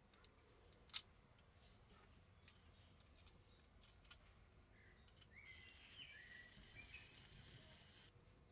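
Quiet handling of a restored hand drill: a few light metal clicks as the crank handle and its fittings are put on, the sharpest about a second in. Then, from about halfway to near the end, a faint high hiss with warbling tones.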